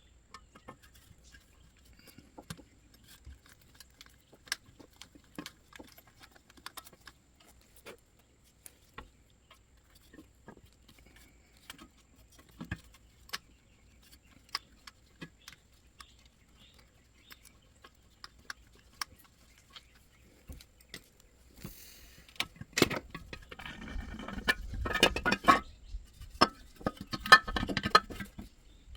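Hand tools clicking and tapping on metal while the oil tank's bottom Allen bolts are taken out, scattered light clicks at first, then a louder run of metallic clattering and clinking in the last several seconds.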